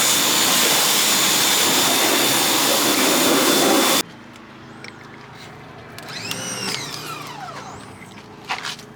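Pressure washer spraying, a loud steady hiss with a thin high whine, cut off suddenly about four seconds in. Then a quieter stretch with a short pitched whine that rises and falls, and a couple of sharp knocks near the end.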